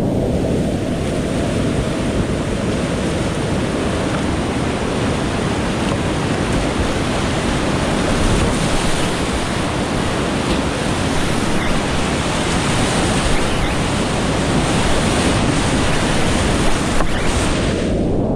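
Whitewater of a steep creek rushing steadily: a loud, continuous wash of water noise.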